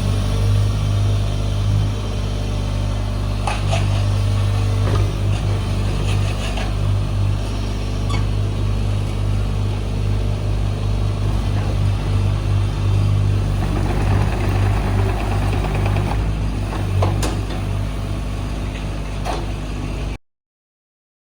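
JCB 48Z-1 mini excavator's four-cylinder JCB diesel engine running steadily, with a few sharp clanks scattered through it and a brief rushing noise about two-thirds of the way in. The sound cuts off suddenly near the end.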